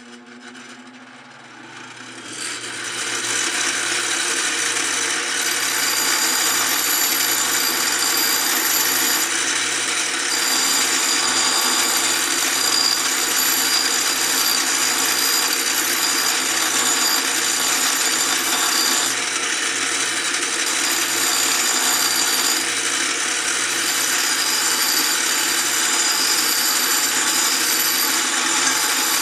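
Electric grinder grinding steel: it comes up to speed over the first few seconds, then runs steadily with a high whine from the cut that breaks off briefly a few times.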